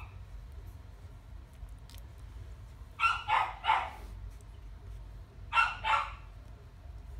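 Young Australian Shepherd puppies yipping as they play-fight, with three short yips about three seconds in and two more near six seconds.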